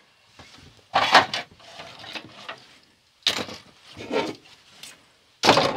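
Plastic pieces of a Snake Mountain toy playset being handled and knocked against each other and the table, in four short clattering bursts, the last near the end.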